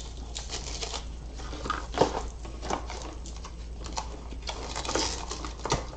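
Handling noise of a rolled diamond painting canvas being slid into a clear plastic sleeve: scattered rustling of plastic and paper with a few soft taps.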